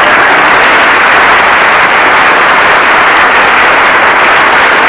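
Studio audience applauding steadily and loudly.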